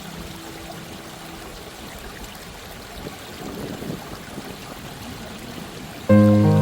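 Small waterfall's water flowing in a steady rush. Soft held music notes fade out in the first two seconds, and a loud sustained music chord comes in near the end.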